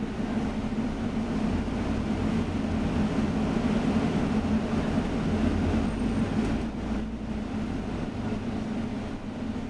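Interior of a moving city bus: a steady low drone of engine and road rumble that swells slightly in the middle.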